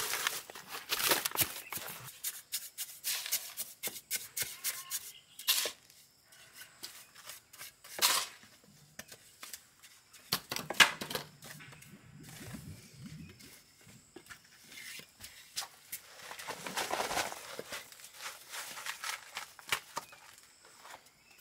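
Scraping and crunching of a trowel working gritty, damp concrete mix into wooden column molds, with concrete tipped in from a plastic bucket. The scraping comes in irregular spells, with a few sharp knocks in between.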